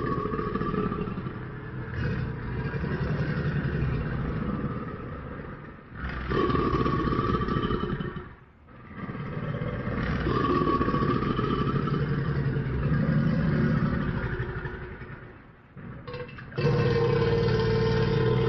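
Crocodile growling: a series of long, low, pulsing rumbles, each lasting several seconds, separated by short pauses.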